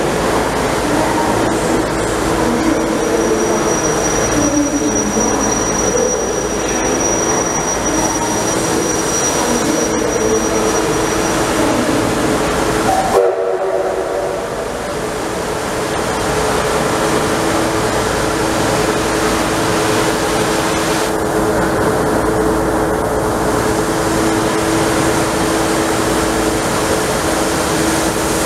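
Victorian Railways K class steam locomotive K190 standing at a platform, steam hissing over a steady mechanical hum, with a faint high whine in the first few seconds. The sound breaks off sharply for a moment about halfway through, then the same steady hiss and hum carry on as the locomotive's tender begins to roll slowly past.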